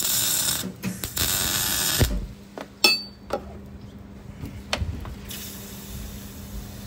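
Electric arc welding on a cracked truck coolant pipe: a loud crackling hiss that stops about two seconds in, then a single metallic clink and a steady low hum.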